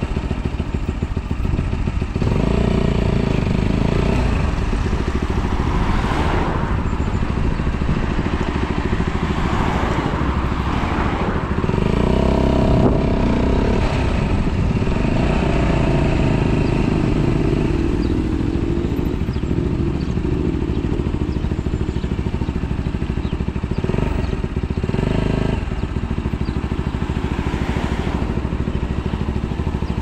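A 125cc motorcycle's engine running while riding, under heavy wind rumble on an action camera's microphone. The engine note rises and falls through the middle, and the sound eases slightly near the end as the bike slows.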